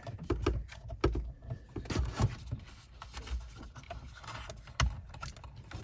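Scattered clicks and knocks of hands handling small hardware as a camera-system part is pushed and hooked into its mount, over a low rumble.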